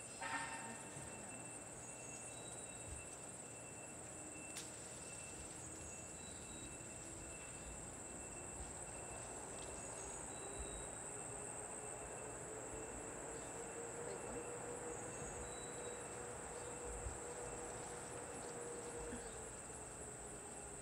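Steady high-pitched buzz of summer insects, with a faint low drone that slowly rises and falls in pitch through the middle and a sharp click about four and a half seconds in.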